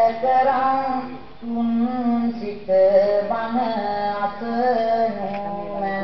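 Background music: a woman singing a slow melody with long held notes, over a lower sustained accompaniment.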